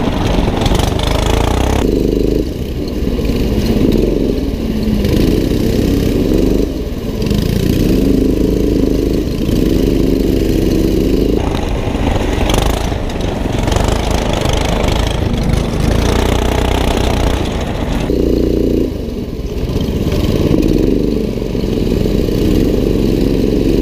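Small single-cylinder go-kart engine running hard, its pitch climbing and dropping again and again as the throttle is opened and closed.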